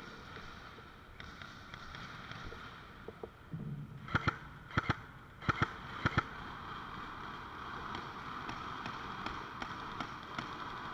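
Airsoft guns firing: seven sharp shots in short pairs and bursts over about two seconds near the middle, over a steady background hiss.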